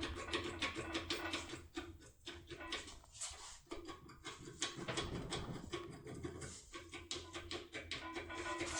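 Background music with a held note, over a quick run of small metallic clicks and scratches from a lock tool being worked in a lock cylinder.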